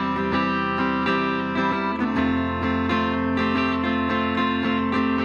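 Guitar strumming a steady run of chords in a live song.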